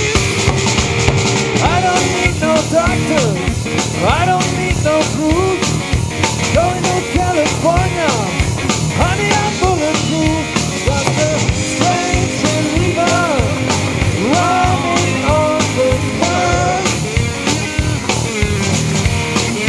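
Live rock band playing an instrumental passage: a lead electric guitar line with gliding, bent notes over bass guitar and drum kit.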